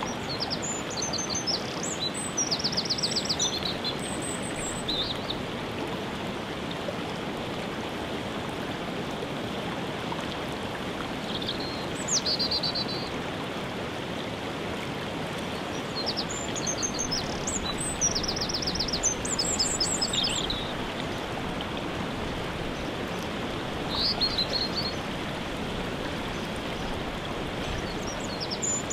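Steady rushing of a waterfall, with songbirds singing over it in short high chirping and trilled phrases every few seconds.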